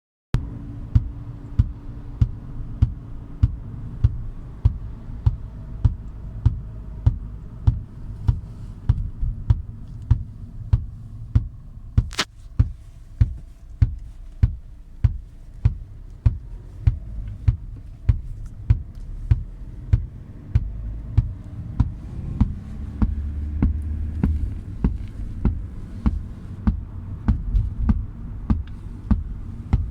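Car speakers giving a steady series of low bumps, about one every 0.6 seconds, over a constant hum, while the VW RNS 510 head unit has no power on its screen or buttons: a fault in the head unit or its amplifier.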